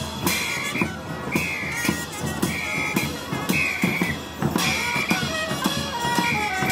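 Music with a steady drum beat and a short high melody repeating about once a second.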